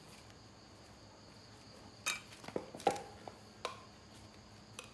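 A few light knocks and clicks in the second half, one with a short metallic ring, as of hard parts or the camera being handled, over a faint steady high-pitched chirring in the background.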